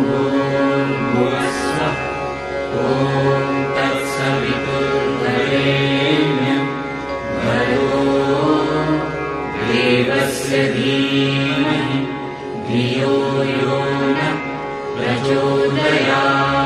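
Devotional background music: chanted mantras sung over a steady drone.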